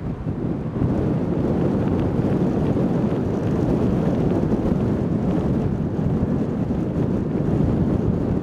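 Strong hurricane wind buffeting the microphone in a steady low rumble, over heavy surf breaking on the beach.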